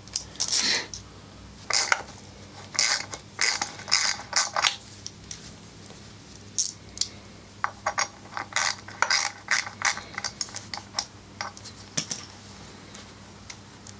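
Small 4mm hex-bit ratchet clicking in short bursts of strokes as the screws holding an exhaust silencer's dB-killer baffles are backed out.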